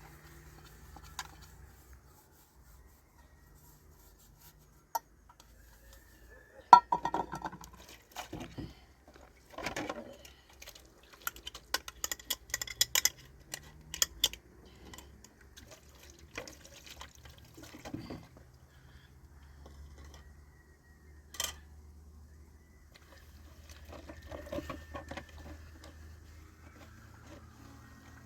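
Irregular clinks and knocks of dishes, pots and utensils being handled, loudest about seven seconds in and busiest between about ten and fourteen seconds.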